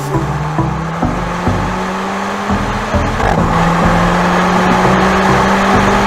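Mercedes-AMG CLA 45 S's turbocharged four-cylinder engine running at speed, with background music. The engine note is held steady and grows a little louder about halfway through.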